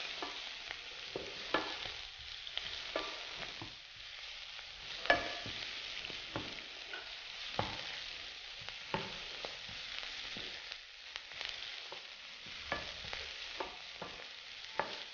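Chopped Swiss chard and onion sizzling in a frying pan as they wilt, stirred with a wooden spoon that taps and scrapes against the pan now and then.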